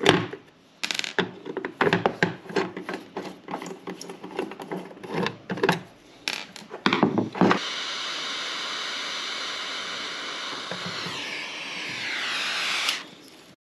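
Clicks and knocks of tools and screws being handled on a workbench. About halfway in, a small handheld torch lights and runs with a steady hiss. Its tone slides down and it grows louder before it shuts off near the end. The flame is heating a screwdriver in a solder-sealed ECU board screw to melt the solder so the screw can be turned out.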